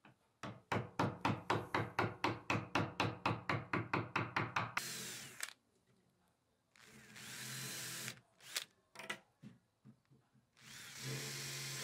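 A quick run of even taps, about five a second, as the chisel cuts a hinge recess in plywood. Then a cordless drill with a thin bit drills screw pilot holes in the plywood lid in three short runs, with a few clicks between them.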